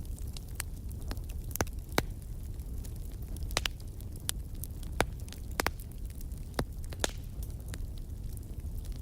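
Wood fire burning in a fireplace: a steady low rumble of flames with irregular crackles and sharp pops, a few louder snaps among them.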